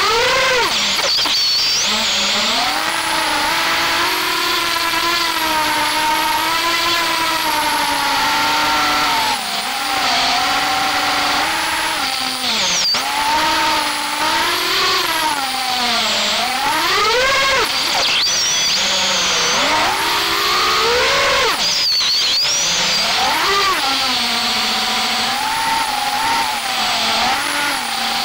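FPV quadcopter's brushless motors and propellers whining, recorded by its own onboard camera. The pitch sweeps up and down again and again as the throttle is punched and eased, with several sharp climbs and drops in the second half.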